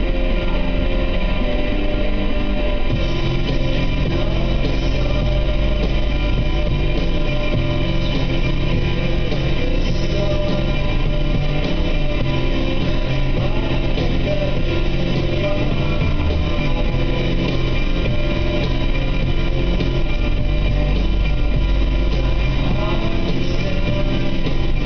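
Rock music with guitar playing steadily, over a constant low rumble of the car driving.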